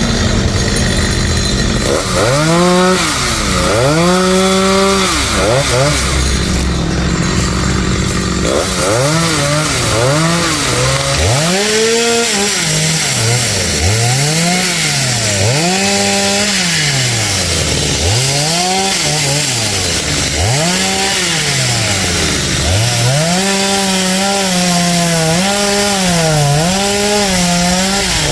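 Two-stroke chainsaw cutting wood, its engine revved up and dropped back over and over, the pitch rising and falling every second or two, then held high and wavering near the end.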